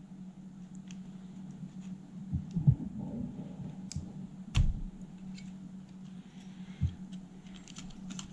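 Handling noise from fingers working on a cassette deck's opened tape mechanism: small clicks and taps, with dull knocks about two and a half, four and a half and seven seconds in, over a steady low hum.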